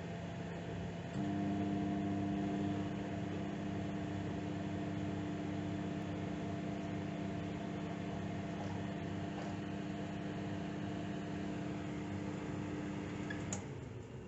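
Microwave oven running while it heats water in a styrofoam cup, a steady hum with a few held tones. The hum steps up louder about a second in, then drops back with a click near the end.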